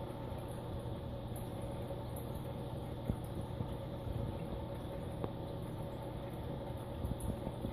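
Steady hum of running reef-aquarium equipment such as pumps, with a constant low drone and a faint whine over a hiss, broken by a few small clicks.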